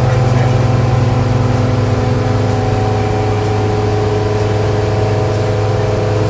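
Motorboat engine running steadily underway: a loud, even drone with a strong low hum and steady higher tones, as heard at the helm.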